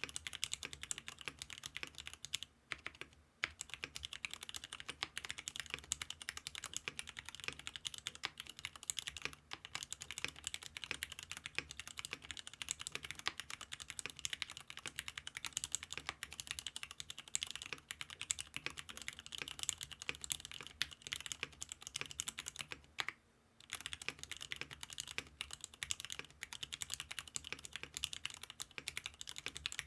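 Continuous fast typing on a custom mechanical keyboard with Cherry Nixie switches on 50 g springs, mounted on an aluminium leaf-spring plate with Poron foam. It is a dense patter of key clacks, broken by two brief pauses: about 3 seconds in and about 23 seconds in. The builder finds the sound thin, lacking a full, solid tone.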